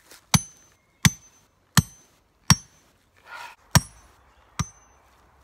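Sledgehammer driving a metal ground rod into the ground: six hard metal-on-metal strikes, each with a short high ring.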